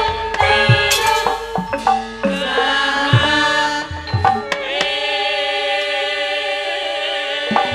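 Sundanese gamelan music accompanying wayang golek: kendang hand drums play quick strokes that drop in pitch, with metallic strikes, for the first four seconds or so, then the drumming stops and a long held note rings over the ensemble.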